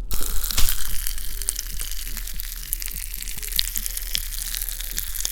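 Pop Rocks candy crackling in the mouth: a dense crackle of many tiny pops that starts suddenly and keeps going.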